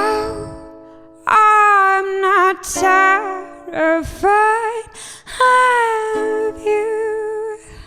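A woman sings long, wordless held notes with vibrato over plucked-string accompaniment. The song dies away at the very end.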